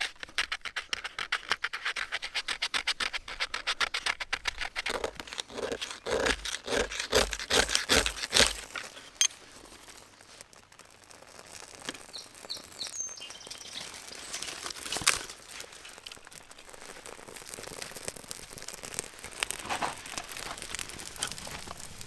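Dry firewood being worked with a blade to start a campfire: quick rhythmic strokes for the first eight seconds or so, then quieter handling with scattered ticks.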